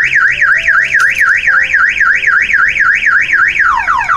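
Aftermarket car alarm siren going off loudly, first as a fast rising-and-falling warble of about four cycles a second, then switching near the end to rapid repeated falling sweeps. It is a false trigger: the alarm is not wired to the door locks, so it doesn't know the car was unlocked with the factory remote.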